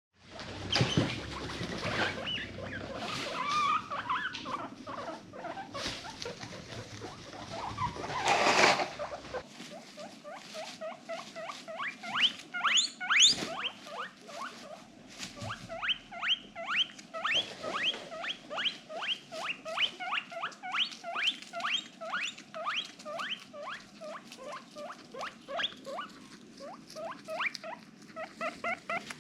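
Guinea pig wheeking: a long run of short rising squeaks, about two a second, in soft excited wheeks. Before it, for the first several seconds, there is rustling and scuffling with a few short squeaks and one louder rustle.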